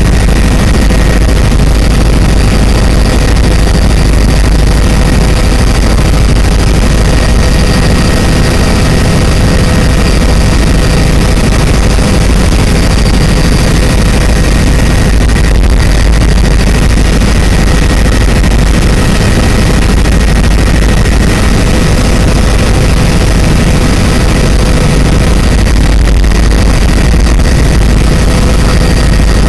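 Aircraft engine and cabin noise heard from inside the cabin in flight: a loud, steady deep drone with a few faint steady whining tones over it.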